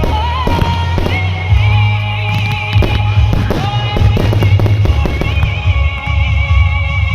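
Fireworks going off in a string of bangs and crackles over loud music with strong bass.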